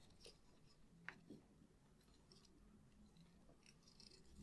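Near silence: room tone, with two faint small clicks about a second in, like light handling of the board and wires.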